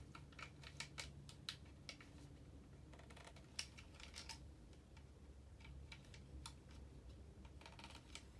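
Faint, irregular clicks and taps of hard plastic toy parts being handled and snapped onto a Masters of the Universe Origins Stridor figure, with one sharper click about three and a half seconds in.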